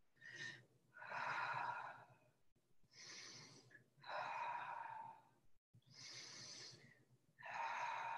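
A woman breathing slowly and deeply close to the microphone: about three full in-and-out breaths, each breath lasting around a second with short pauses between.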